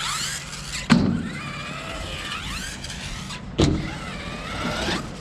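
A Team Associated Rival MT10 RC monster truck's electric motor and drivetrain whining, rising and falling in pitch with the throttle. Two hard thumps come about a second in and again a little past the halfway point, as the truck hits the ground.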